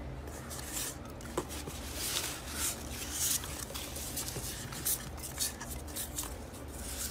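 Polystyrene packing peanuts rustling and crackling against each other and the cardboard box as hands dig through them and lift out a small boxed item, in a run of short, irregular bursts.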